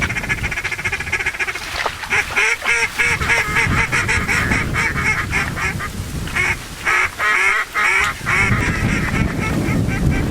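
A long, fast run of duck quacks that keeps going with only short breaks.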